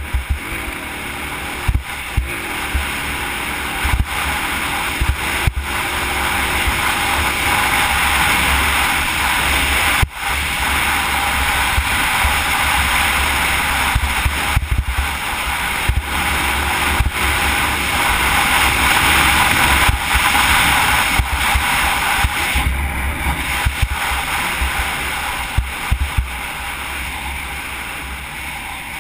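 Dirt bike engine running hard at speed over a sandy trail, with heavy wind buffeting on a helmet-mounted camera and sharp knocks from bumps. It builds in the first few seconds, stays loud through the middle and eases off near the end.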